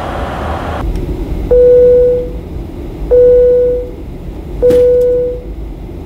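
A single-pitched electronic chime dings about every one and a half seconds, each ding fading out, four times over the steady drone of a jet airliner cabin.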